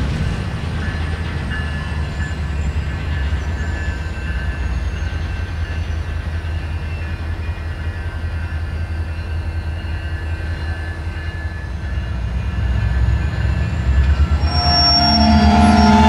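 Freight cars in a rail yard with a steady low rumble. A high metallic squeal from the cars sets in and grows louder near the end.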